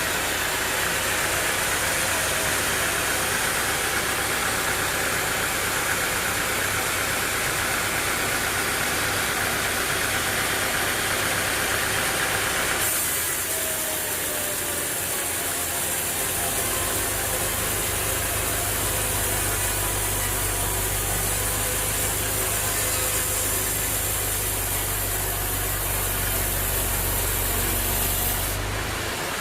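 An engine running steadily with a low hum. The sound changes abruptly about 13 seconds in and again just before the end, as if between different takes.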